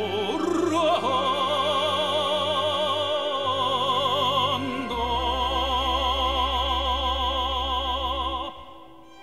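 Background music in a classical, operatic style: one singer holding long notes with a wide vibrato over a low, steady accompaniment, fading down near the end.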